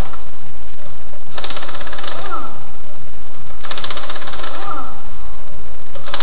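Pneumatic impact wrench rattling in three short bursts of about a second each, its pitch falling away after each burst.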